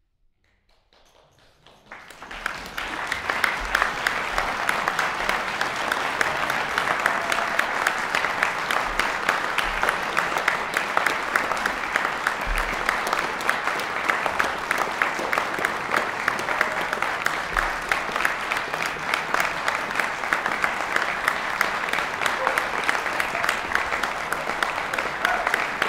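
Audience applauding: a moment of silence, then clapping starts about a second in and swells within a second or two into steady, dense applause.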